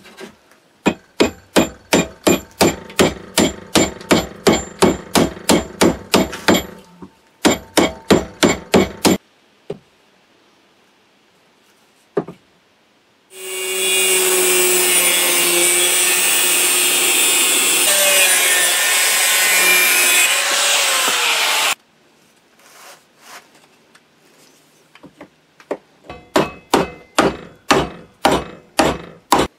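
Rapid hammer blows, about four a second, in two runs over the first nine seconds, driving the wooden handle down onto the billhook head held in a vise. Then an angle grinder grinds a metal tube ferrule steadily for about eight seconds, and near the end comes another quick run of hammer blows.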